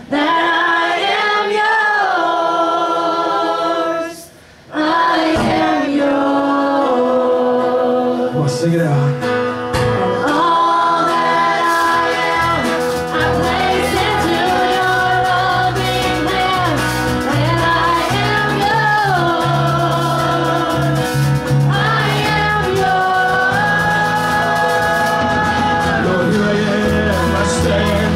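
Live worship band: two women singing into microphones over acoustic guitar, bass guitar and drums. The voices lead almost alone at first and break off briefly about four seconds in. Then the bass and drums come in and the full band plays on.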